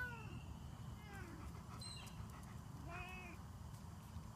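Domestic cat meowing faintly: short meows that rise and fall in pitch, one trailing off at the start, a weak one about a second in and a clearer one about three seconds in.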